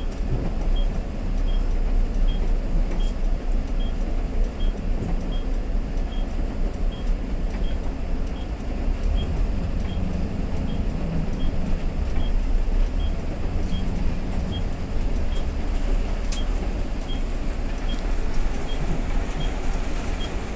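Steady low engine rumble and cabin noise of a city bus riding in the rain, heard from inside. A faint high tick repeats evenly about one and a half times a second throughout.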